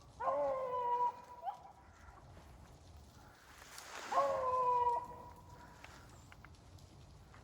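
Rabbit hounds baying on a trail: two long drawn-out bays, one near the start and one about four seconds in, with a short yelp in between.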